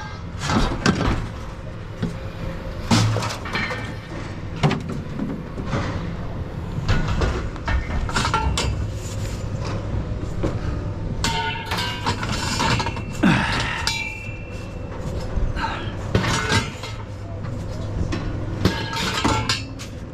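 Pieces of scrap metal clanking and banging irregularly as they are handled and tossed, over a steady low hum.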